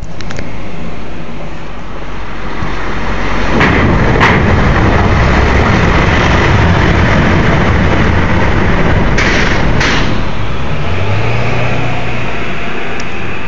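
Car driving slowly through a wooden covered bridge, heard from inside the car: steady tyre and engine noise. There is a sharp double clunk about four seconds in and another just after nine seconds.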